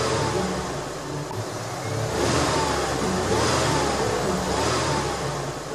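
Car engine revving in repeated surges, swelling and easing several times.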